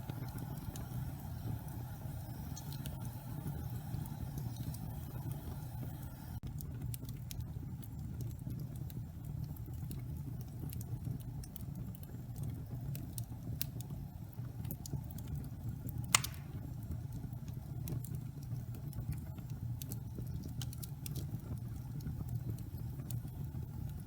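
Wood fire burning in a fireplace: a steady low rumble of flames with scattered small crackles, and one sharp loud pop about 16 seconds in.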